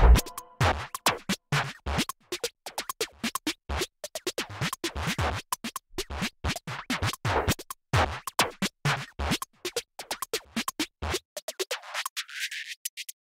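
Electronic background music in a sparse, choppy stretch of quick clicks and short scratch-like hits, without the full beat. Near the end the bass drops away and the sound thins out.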